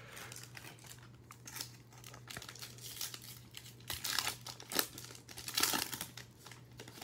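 Foil wrapper of a Topps Chrome baseball card pack crinkling and tearing as it is pulled from the box and ripped open, with louder bursts of crinkling about four and six seconds in.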